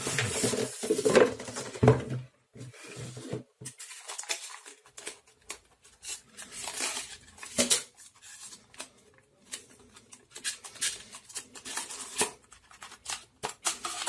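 A Blue Yeti USB microphone being worked out of its tight expanded-polystyrene (icopor) packing and cardboard box: irregular scraping, rubbing and light knocks of foam, card and the microphone's metal body, busiest in the first couple of seconds.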